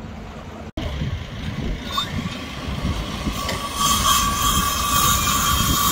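Steady machine noise with a low engine-like rumble; about four seconds in, a steady high whine sets in and holds.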